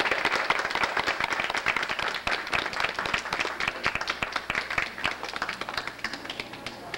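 Audience applauding, with many hands clapping at once; the clapping thins out and gets quieter near the end.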